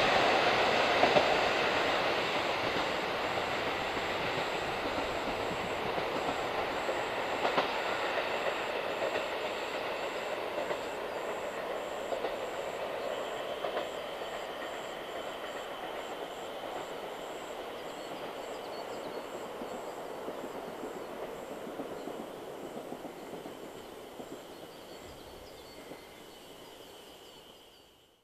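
Diesel train running away into the distance, its wheels clicking over rail joints, the sound fading steadily until it is barely audible near the end.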